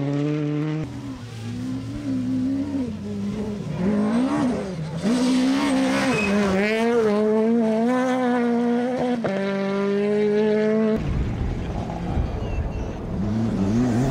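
Rally cars at full throttle on a gravel stage, several in turn: engines revving hard, their pitch climbing and dropping sharply with each gear change. About eleven seconds in, a rougher, noisier stretch with gravel and tyre noise comes in before another engine revs up.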